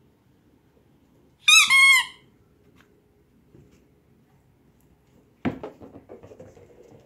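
A dog's toy squeaking twice in quick succession, the first squeak falling in pitch and the second held level. A few seconds later comes a knock followed by a light clatter and rattle.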